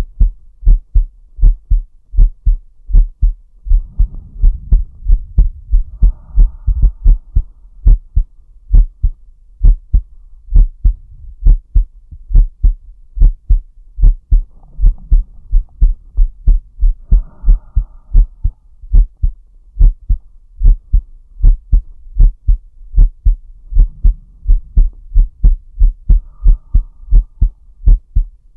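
A man's heartbeat, recorded close up: a steady, regular run of deep lub-dub beats. Three slow, deep breaths swell in softly underneath, about ten seconds apart.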